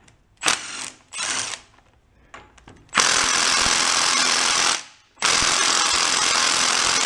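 Milwaukee FUEL cordless impact wrench on a socket at an engine's cylinder head. It starts with two short trigger pulls, then hammers in two long bursts of about two seconds each without the fastener breaking loose.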